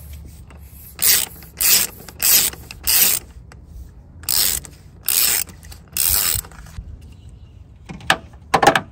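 Socket ratchet clicking in seven short strokes, with a pause after the fourth, as a hex 12 socket unscrews the oil filter housing cap counterclockwise. Two sharp clicks near the end.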